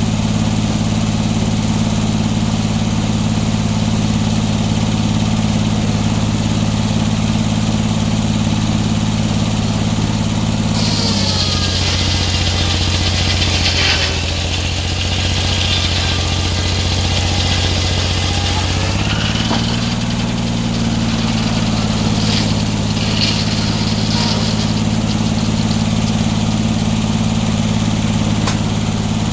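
Sawmill engine running steadily. About eleven seconds in, the saw cuts into a log: the engine note drops under the load and a high hiss of cutting wood runs for about eight seconds. Then the engine picks back up to its earlier speed.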